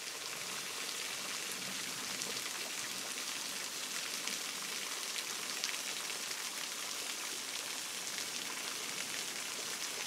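Thin streams and drops of spring water falling from a moss-covered travertine overhang and spattering on the rock below: a steady hiss like rain.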